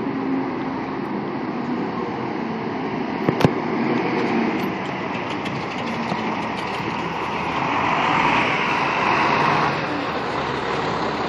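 Seagrave fire engine's diesel engine running as the truck pulls past close by, loudest about eight to ten seconds in, over steady street traffic. A single sharp click comes about three and a half seconds in.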